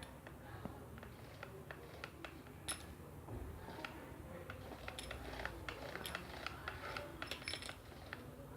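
Faint, scattered clicks and metallic taps of a drill bit being fitted into the chuck of a Bosch GSB 13 RE impact drill.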